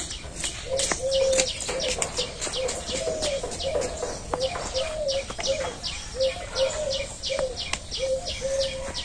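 Birds calling: a short low note repeated about twice a second, with a steady string of quick high chirps above it.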